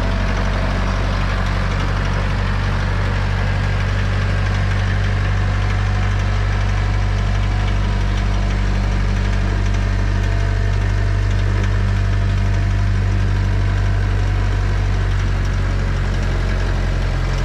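Branson 3725H compact tractor's diesel engine running steadily as the tractor drives across gravel with a log on its loader's pallet forks.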